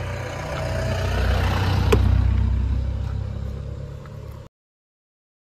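A passing road vehicle's engine rumble swelling to a peak about two seconds in, then fading, with a sharp click near the peak. The sound cuts off abruptly about four and a half seconds in.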